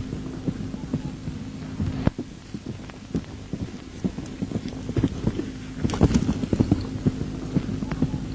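Steady low hum on an old newsreel soundtrack, with scattered dull thuds and crackle that come thickest a little past the middle.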